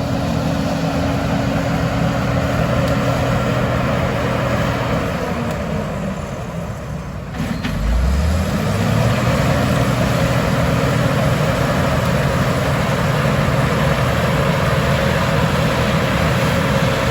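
Combine harvester engine running steadily. About six seconds in it eases off, and about eight seconds in it picks back up with a rising pitch, then runs on steadily.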